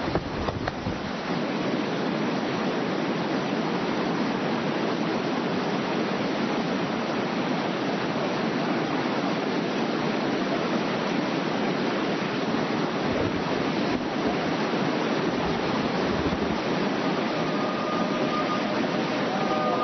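Whitewater river rapids rushing steadily, loud and unbroken, with water breaking over a log raft in the first second or so.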